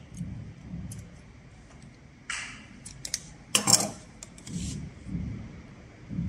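Handling noise as a braided rope is picked up and turned in the hands beside the sewing machine: scattered clicks, a short rustle about two seconds in and a louder knock just past halfway, over a low uneven rumble.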